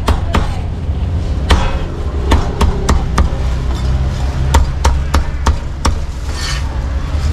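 Heavy cleaver chopping roast pork on a thick wooden chopping block: sharp single chops, about ten, at an uneven pace, over a steady low hum. A short scraping sound comes near the end.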